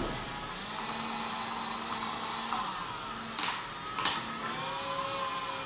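Small electric motors driving moving kinetic sculptures, whirring steadily with faint whining tones that slide up and down in pitch. Two short sharp clicks come about three and four seconds in.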